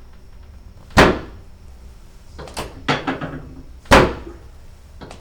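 Drop section of a chiropractic table falling under the adjuster's thrust and catching with a loud clunk, twice, about three seconds apart, with a few lighter knocks in between.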